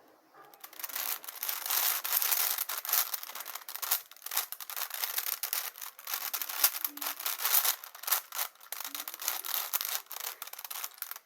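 5×5 Rubik's cube being turned quickly by hand, its plastic layers clicking and rasping against each other in a dense run of turns while edge pieces are paired.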